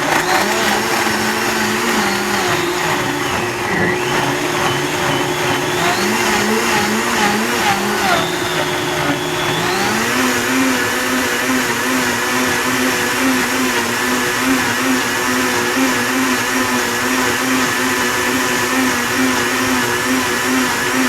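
A high-powered professional countertop blender running continuously, blending leaves and juice into a drink. Its motor pitch dips and recovers several times in the first half as the contents are chopped, then holds steady.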